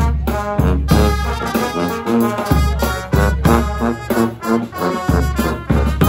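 A brass band playing a lively tune: trombones and trumpets on the melody over a heavy sousaphone bass line, with a bass drum.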